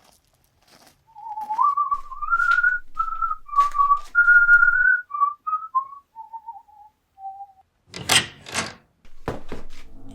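A person whistling a slow, wandering tune, one clear note at a time. Near the end come a few short, sharp knocks.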